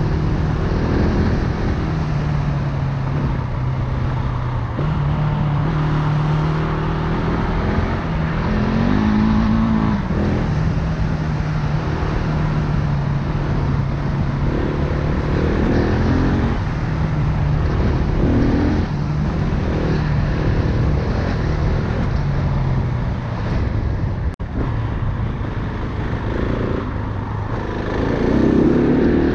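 Single-cylinder four-stroke dirt bike engine running under way, its pitch stepping up and down with the throttle over a steady rush of noise.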